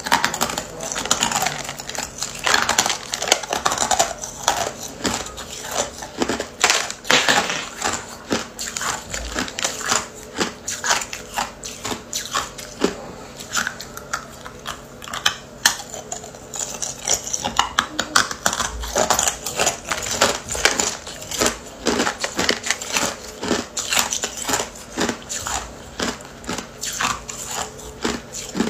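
Hard clear ice cubes being bitten and crunched between the teeth, close to the microphone: a dense, irregular run of sharp cracking crunches, several a second.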